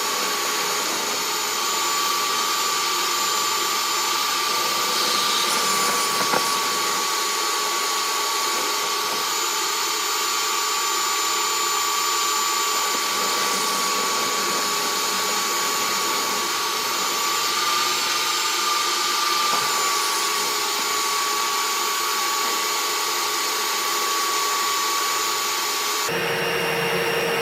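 Steady motor whine over rushing air from dryer vent cleaning equipment, typical of a powered rotary vent brush or blower running in the duct. The sound changes abruptly about a second before the end.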